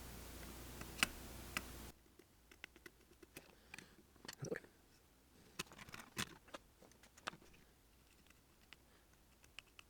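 Faint, scattered light clicks and taps of a soldering iron tip working on a phone circuit board, cleaning excess solder off the display contacts. A low background hiss cuts off about two seconds in.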